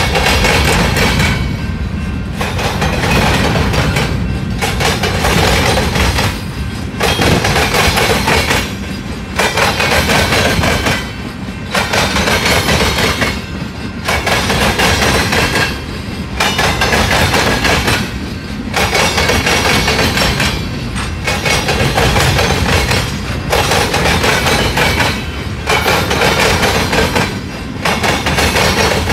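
Freight train of covered hoppers and tank cars rolling past, wheels clattering and clanking over the rails. The noise is loud and continuous, dipping briefly about every two seconds.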